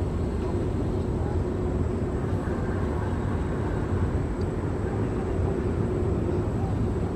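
Steady rumble of a jet airliner's engines at the airport, with a faint steady hum running through it.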